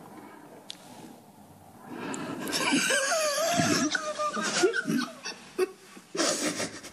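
A woman sobbing, with wavering, breaking cries and gasping breaths, starting about two seconds in.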